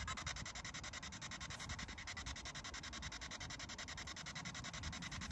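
P-SB7 spirit box sweeping the FM radio band: radio static chopped into rapid, evenly spaced pulses as it steps from station to station.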